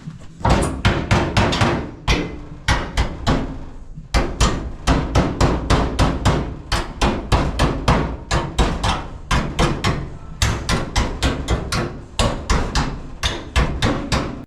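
Hammer blows struck in quick runs of about four a second, with short pauses between the runs.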